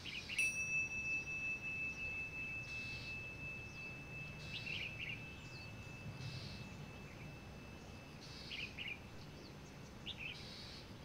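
A meditation bell struck once, its high clear tone ringing on and slowly fading over about nine seconds: the cue to open the eyes at the end of a breathing meditation. Birds chirp now and then over it.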